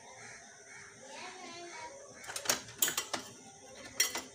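Metal kitchenware being handled: several sharp clinks and clatters in the second half. Faint voices in the background before that.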